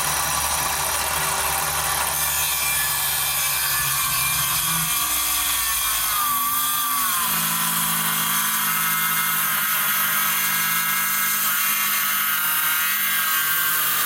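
Power tool running steadily under load in wood, its motor pitch shifting a few times partway through.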